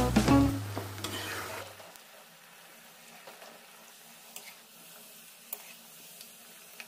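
The tail of background music fades out over the first two seconds. After that comes a faint, steady sizzle of potato strips deep-frying in hot oil, with a few light clicks from the metal slotted spoon stirring them in the pan.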